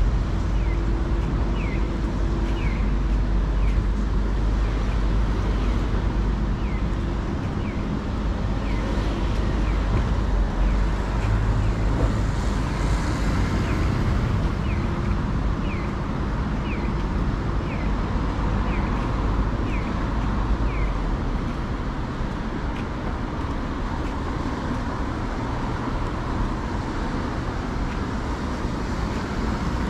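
Steady road traffic noise with a low rumble from passing cars. A short, falling high chirp repeats about one and a half times a second and stops about two-thirds of the way through.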